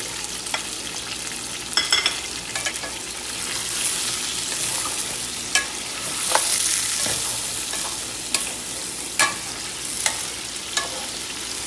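Raw chicken pieces frying in hot oil in a metal karahi, with a steady sizzle, while a spatula stirs them. Sharp scrapes and knocks of the spatula against the pan come every second or so.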